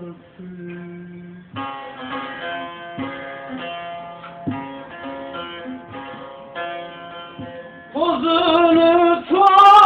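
Instrumental interlude of a Turkish folk song: a plucked string instrument plays a melody of short, evenly spaced notes after a held low note. A voice comes back in singing, louder, about eight seconds in.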